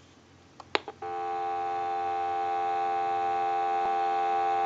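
Telephone dial tone, a steady two-note hum with no breaks, coming from a test analyzer and picked up from the handset receiver by an amplified pickup; it starts about a second in, just after a faint click.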